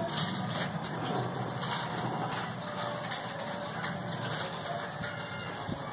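A steady low mechanical hum, like an engine or motor running in the background.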